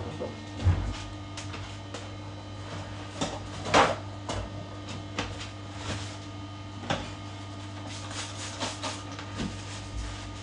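Bathroom cleaning items being handled and set down: scattered knocks and clatters, the loudest about four seconds in, over a steady low hum.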